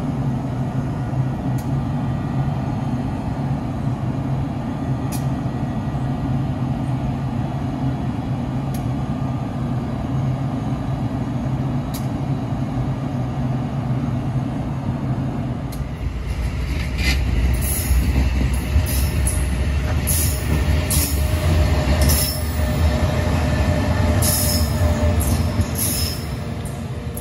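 NJ Transit ALP-46 electric locomotive humming steadily with a low drone. About sixteen seconds in the sound changes to a louder passenger train rushing past at speed, a deep rumble with hissing wheel and rail noise.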